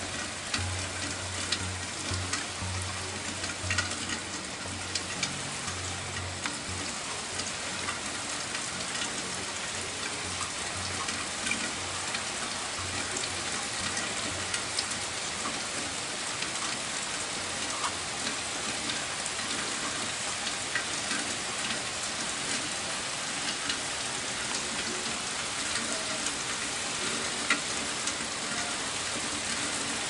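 Steady rain falling, a dense patter of many small drop clicks. A low hum comes and goes during the first several seconds.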